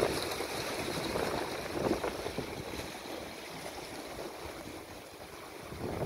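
Small sea waves washing and splashing against shoreline rocks. It surges at the start and again about two seconds in, settles to a softer wash, then surges once more at the end.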